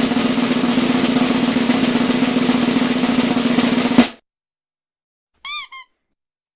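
Snare drum roll sound effect, a steady roll that ends on a sharp hit about four seconds in, then two quick rubber duck squeaks.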